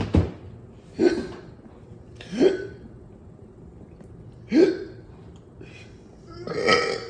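A man hiccupping five times at uneven gaps of one to two seconds, each a short gulped sound from the throat, on an overfull stomach.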